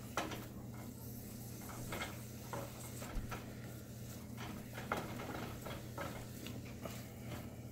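Wooden spoon stirring and scraping chopped mushrooms and onions around a stainless steel skillet, with irregular light taps and scrapes against the pan. A steady low hum runs underneath.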